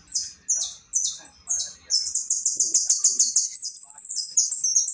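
Caged songbird singing: a string of short, high, falling whistled notes, breaking about two seconds in into a fast, even trill that runs for about two seconds before returning to the separate falling notes.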